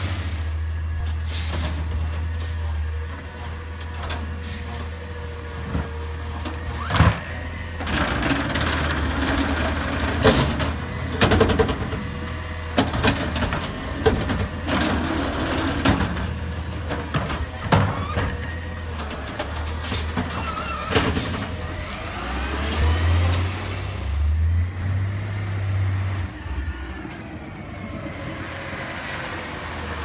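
Natural-gas Autocar ACX garbage truck with a McNeilus ZR automated side-loader at work: the engine runs steadily while the arm lifts and dumps a cart into the hopper, with a run of sharp clanks and bangs as the cart is shaken out. Later the engine rises as the truck pulls away.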